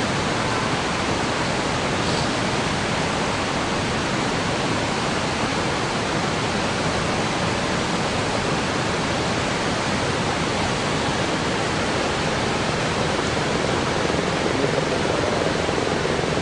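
Steady rush of a swollen, silt-laden mountain river in flood, a dense even noise of fast water with no breaks.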